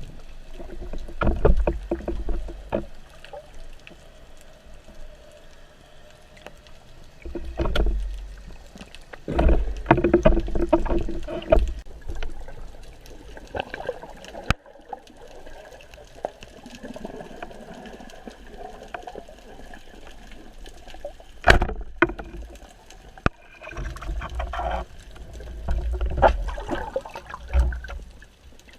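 Water sloshing and churning around the camera in irregular bursts, with a few sharp clicks.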